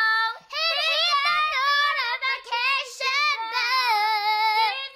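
Girls singing in high voices with no instruments, holding long notes and sliding from one pitch to the next, broken by a short pause near the start and another near the end.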